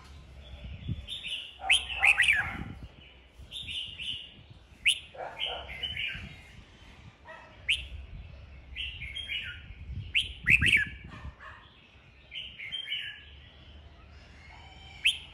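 Red-whiskered bulbul singing: short, loud warbled phrases with sharp whistled notes, a new burst every second or two, the strongest about two seconds in and again about ten seconds in.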